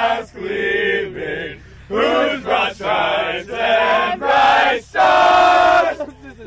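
A group of voices singing or chanting loudly together in held notes, in short phrases broken by brief gaps.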